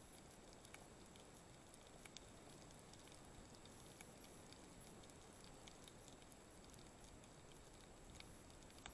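Near silence underwater: a low hiss with scattered faint clicks and crackles.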